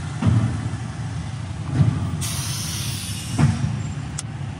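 Pickup truck's engine running with a low steady rumble, heard from inside the cab, with a hiss added from about two seconds in.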